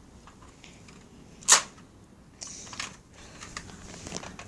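Plastic clicks and rattles of a Nerf blaster being reloaded, with one sharp, louder snap about a second and a half in.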